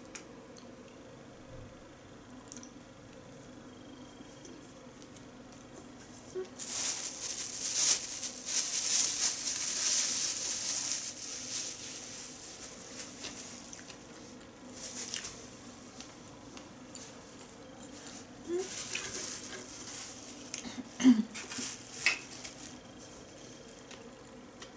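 Thin plastic bag crinkling and rustling as a plastic takeout tray is unwrapped, in two spells, the first lasting several seconds, with a few light clatters of dishes and chopsticks.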